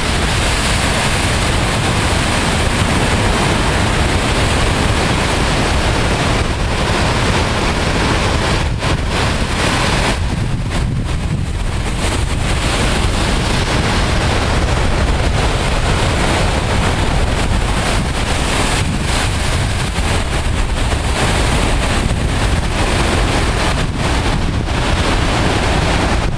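Heavy storm surf crashing and washing over a rocky shore in a continuous loud rush, with wind buffeting the microphone as a low rumble.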